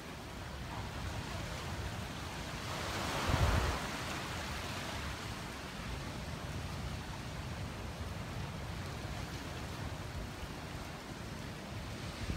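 Steady wind rushing and buffeting the microphone, swelling briefly about three seconds in.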